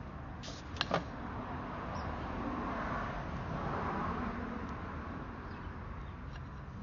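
A vehicle passing by: a steady noise that swells over a few seconds and then fades. A few sharp clicks come about a second in.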